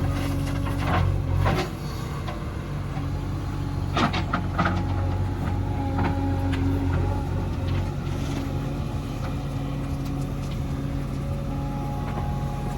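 Diesel engine of heavy earthmoving machinery running steadily, with a few short knocks and clatters in the first five seconds.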